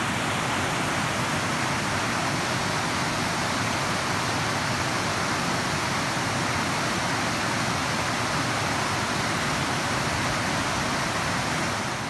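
Water rushing steadily over a river's rock cascade and weir, a constant even noise with no breaks.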